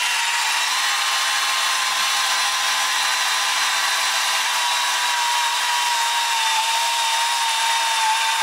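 Cordless drill running steadily under load as its bit bores into a steel truck frame rail, a constant whine whose pitch sags slightly near the end.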